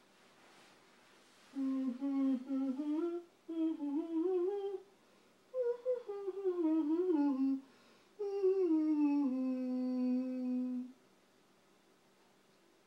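A person humming a short tune in four phrases. The last phrase glides down and settles on a long held note.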